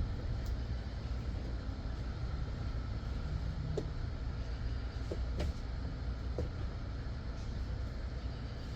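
Steady low rumble with a few light clicks and taps scattered through it.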